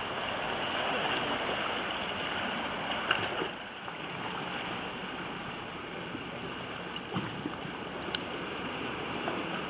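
Sea water washing and lapping against a rocky shore, a steady rushing that drops a little about three and a half seconds in, with a few faint clicks.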